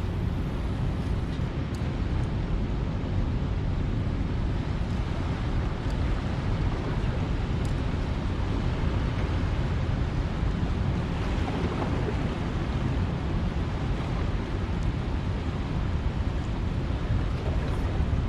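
Steady low rumble of wind buffeting the microphone over a constant wash of rough water.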